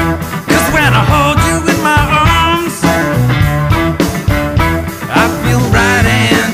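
Rock music with guitar over a steady beat. A wavering lead melody comes in about half a second in and again near the end.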